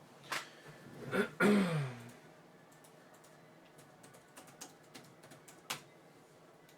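A short murmured vocal sound in the first two seconds, then faint, scattered light clicks and taps, with one sharper click near the end.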